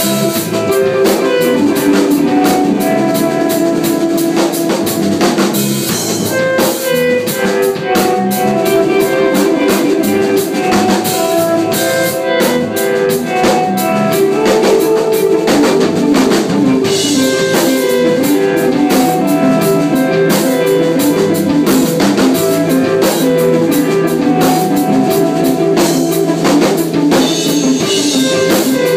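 A rock band playing: electric guitars and a drum kit with cymbals, steady and loud throughout.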